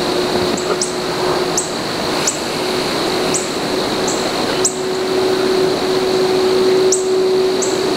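Outdoor field ambience: a steady high-pitched drone and short, very high chirps about once a second, over a steady low hum and hiss.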